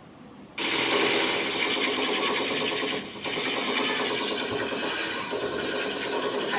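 Toy machine-gun sound effect: a rapid, continuous rattle of gunfire that starts suddenly about half a second in and keeps going, with a short break near the middle.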